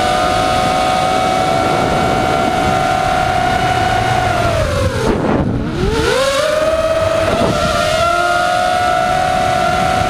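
Brushless motors and 5040 propellers of an ImmersionRC Vortex 250 FPV racing quadcopter whining steadily, heard from its onboard camera. About five seconds in, the whine falls sharply in pitch as the throttle is chopped, then climbs back up within a second as power returns.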